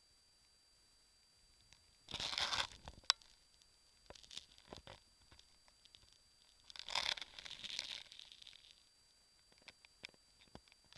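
Handling noise on a handheld camera's microphone: rustling and rubbing in two bursts, about two and seven seconds in, with scattered clicks between them.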